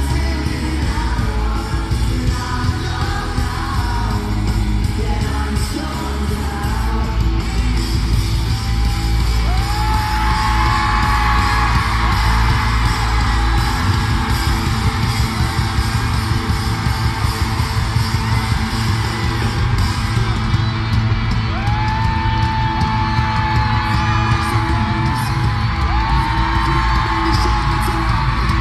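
Pop-rock band playing live in an arena: drums, electric guitars and bass, with singing, heard from among the audience. The crowd yells and screams along, loudest from about nine seconds in.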